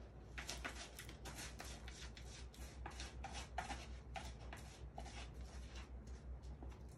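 F1 Bengal kitten digging and scratching in cat litter in a plastic litter box: a quick run of short scratchy rustles, about three a second, starting about half a second in.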